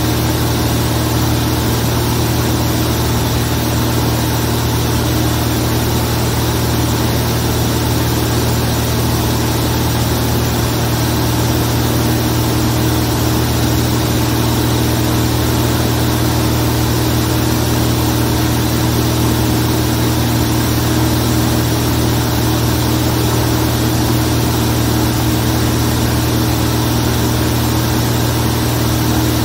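Zlín Z 42 light aircraft's six-cylinder Avia M 137 piston engine and propeller running steadily at constant power, a continuous loud drone with a strong low hum.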